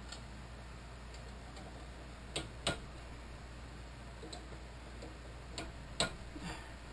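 A handful of sharp metallic clicks, spaced irregularly, as a benchtop drill press's chuck is worked by hand, over a steady low hum.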